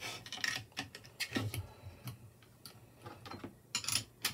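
Light, irregular metallic clicks and taps from a small spanner working a lock nut on the winch spool's axle against a 3D-printed plastic housing, with a louder pair of clicks near the end.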